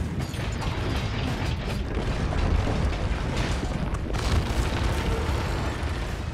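Film sound effects of a high-rise building collapsing: a continuous heavy rumble of falling concrete and debris.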